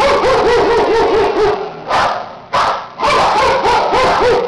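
Kennelled shelter dogs barking and yipping in loud bursts, with a quick run of high yips in the first second and a half.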